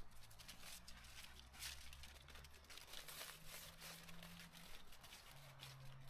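Faint footsteps rustling and crunching through dry fallen leaves, in irregular crackles, over a faint steady low hum.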